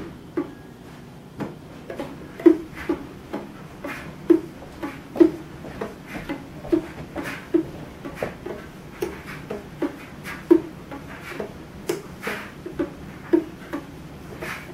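The string of a homemade one-string instrument with a red plastic cone for a body, twanging in short, separate notes at about the same low pitch, roughly two a second in an uneven rhythm.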